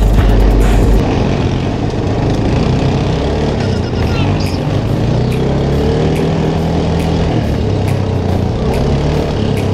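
Small off-road vehicle engine running steadily on a bumpy dirt trail, heard through a helmet-mounted camera. Heavy wind rumble on the microphone in the first second, and scattered knocks and rattles from the bumps.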